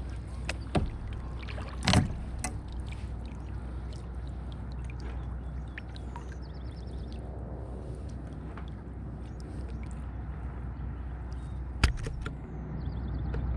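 A kayak moving on the water, water sloshing against the hull, with a few sharp knocks on the boat. The loudest knock comes about two seconds in, and another near the end.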